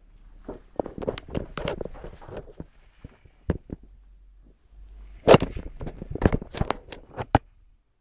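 Handling noise: irregular clicks, knocks and rubbing against a hand-held phone's microphone, loudest in two clusters in the second half.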